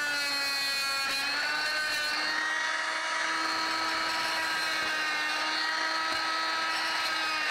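Oscillating multi-tool running and cutting away broken wood lath and plaster at the edge of a ceiling opening: a steady buzzing whine that dips slightly in pitch about a second in, then holds steady.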